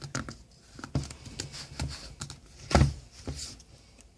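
Hands struggling with a phone box and its packaging: scattered knocks, clicks and scrapes, with a louder thump almost three seconds in.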